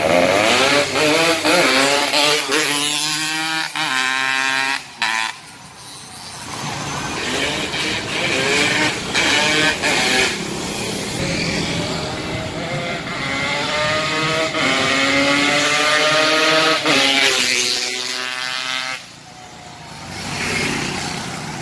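Motorcycle engines riding past, rising in pitch as they accelerate; the sound builds twice and falls away sharply after each pass.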